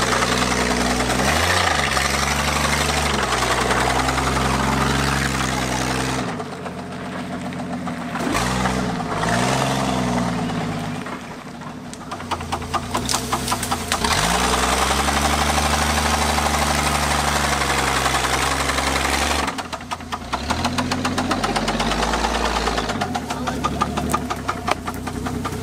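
AMC Eagle's engine revving up and down under load on a rutted dirt trail, with an engine knock. The revs drop away twice, about six seconds in and again near twenty seconds.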